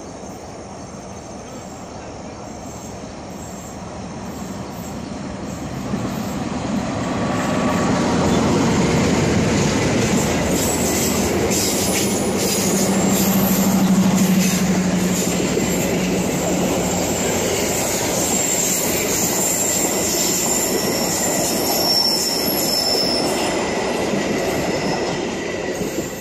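KA Malabar diesel-hauled passenger train approaching and rolling past close by. Its rumble builds over the first several seconds, then the long rake of coaches passes with wheels clattering over the rail joints and squealing. The sound begins to fade near the end.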